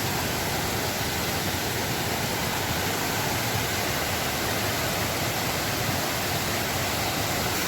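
Fast-flowing river water rushing steadily, a strong current.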